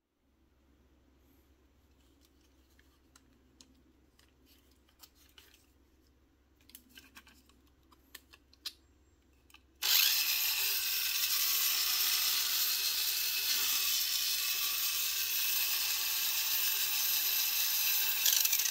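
Tamiya Mini 4WD Dual Ridge Jr.'s small electric motor switched on about halfway through, running at full speed with the wheels spinning free in a steady high whine, cut off abruptly at the end. Before it starts, light plastic clicks from handling the car.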